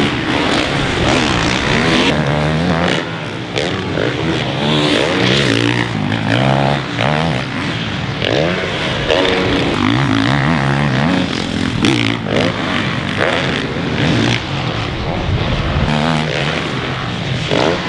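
Supercross dirt bikes' four-stroke engines revving hard on the track, several at once, their pitch repeatedly climbing and dropping as riders accelerate, shift and roll off.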